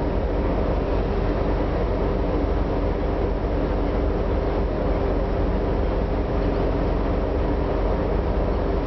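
Oil tanker underway: a steady rushing of wind and sea with an even low machinery hum underneath.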